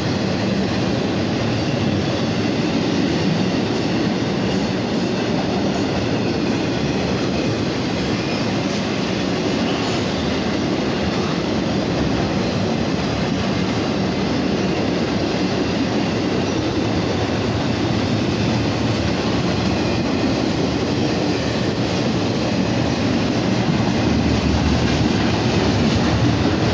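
A long CSX intermodal freight train rolling past slowly, its wheels on the rails making a steady rumble and clatter.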